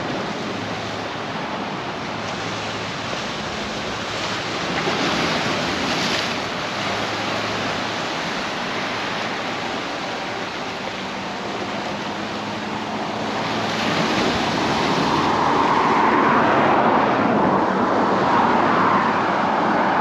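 Ocean surf breaking and washing ashore, with wind, as a steady rushing noise that swells about five seconds in and grows louder again from about fourteen seconds in.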